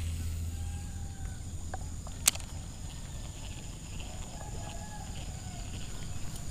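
Quiet outdoor ambience with two faint, drawn-out distant animal calls, and a single sharp click a little over two seconds in, with a few fainter ticks of reel and rod handling.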